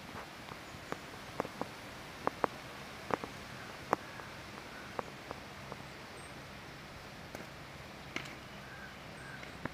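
Quiet outdoor background with scattered short clicks and taps at irregular intervals.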